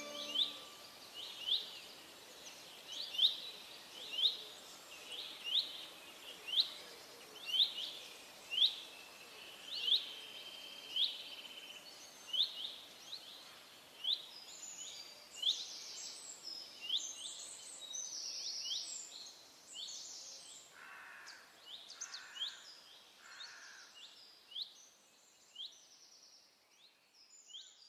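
Birds calling: a short rising chirp repeated about once a second, joined about halfway through by busier, higher calls, the whole fading toward the end.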